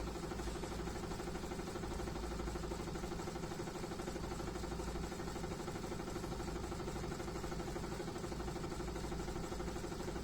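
Sanyo top-loading pulsator washing machine in its spin cycle, its motor and spinning tub running with a steady, even hum.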